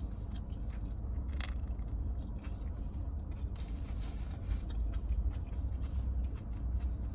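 Close-up chewing and biting of a barbecue chicken plate, with scattered short clicks and scrapes, over a steady low hum.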